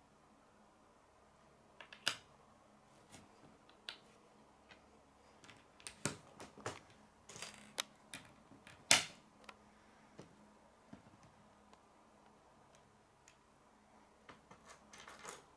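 K'nex plastic rods and connectors clicking as they are handled, snapped together and set down on a wooden table: scattered sharp clicks, most of them around the middle, with the loudest there, then a few seconds without any and a few small ones near the end.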